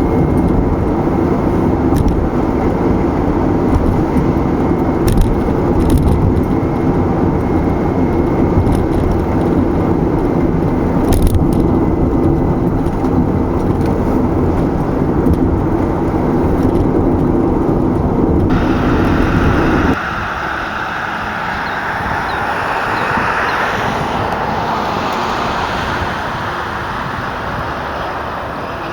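Car driving at speed, steady tyre and engine road noise with a few brief knocks. About two-thirds of the way through the sound switches abruptly to a lighter, hissier traffic sound without the low rumble.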